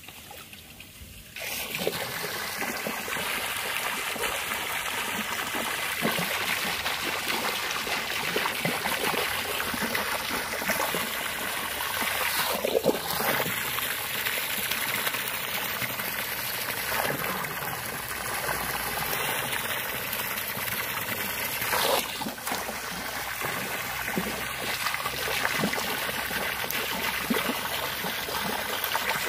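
A jet of water pouring into a swimming pool, a steady rush of water that starts about a second and a half in, with a couple of brief louder surges.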